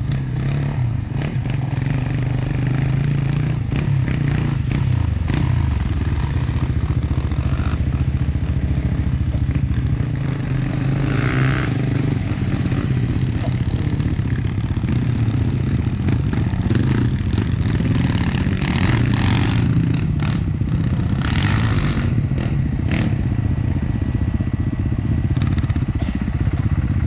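Enduro dirt bike engine running steadily at low revs.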